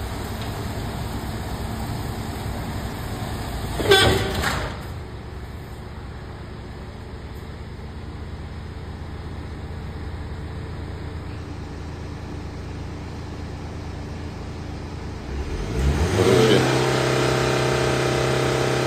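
Roller brake tester running under the car's wheels: a steady mechanical hum, with one loud clunk about four seconds in. Near the end the roller motors spin up with a rising hum that settles into a louder steady drone.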